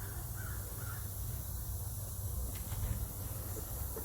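A bird cawing briefly, twice, about half a second in, over a low steady rumble.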